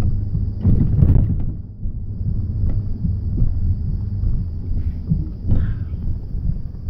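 Low steady rumble of a car driving up a mountain road, heard from inside the cabin, with two louder rushes of noise, one about a second in and one late on.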